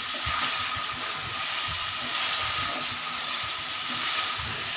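Chicken pieces frying in hot oil in a metal karahi, sizzling steadily as a metal ladle stirs them through freshly added ground spices, with soft irregular knocks and scrapes from the ladle. This is the bhunao stage, where the spices are fried into the chicken.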